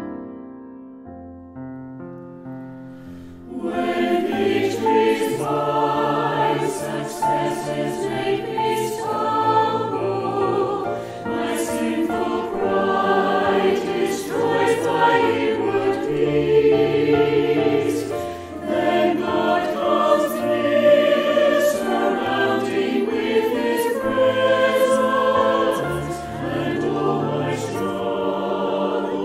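Solo digital piano playing the last bars of an introduction, then about three and a half seconds in a mixed choir of men and women comes in singing a slow hymn with the piano accompanying.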